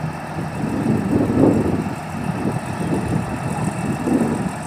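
Komatsu D70LE bulldozer's diesel engine idling with a low, uneven rumble that swells briefly about a second and a half in and again near the end.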